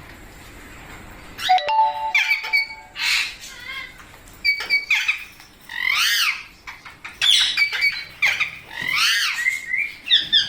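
Several rose-ringed parakeets squawking in repeated short calls, starting after a quiet first second or so and coming in bursts for the rest of the time.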